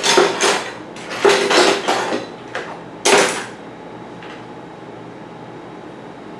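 Small metal parts and tools clattering and knocking together in a few bursts, as bolts are rummaged through by hand, then it goes quiet after about three and a half seconds.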